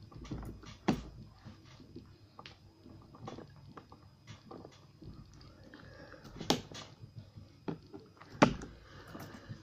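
Irregular clicks and knocks of metal on metal as a lock cylinder's stuck plug is worked with tools, with louder knocks about a second in and twice in the last three seconds.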